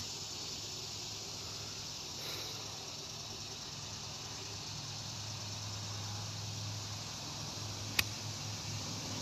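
Steady high outdoor hiss, then about eight seconds in a single sharp click: a golf iron striking the ball off the tee.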